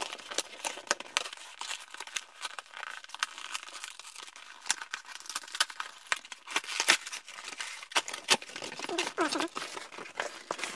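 Cardboard book mailer being torn open by hand: the tear strip and flaps ripping, with dense irregular crackling and snapping of the cardboard.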